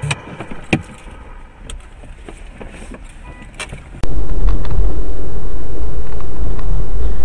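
Steady low rumble of a car driving, its engine and road noise picked up by a dashboard camera inside the car. It starts abruptly and loud about four seconds in. Before that there is quieter in-car sound with a few sharp clicks.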